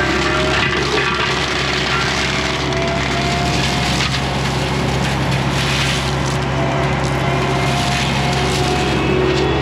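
Forestry mulcher head chewing through brush and wood, a steady loud grinding and splintering over the constant drone of a diesel machine's engine.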